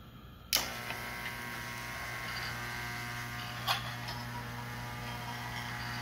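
American Flyer 771 cattle farm accessory switched on with a click about half a second in, then its solenoid-driven vibrating platform buzzing steadily as it walks the toy cattle along the pens and up the ramp, with another click partway through.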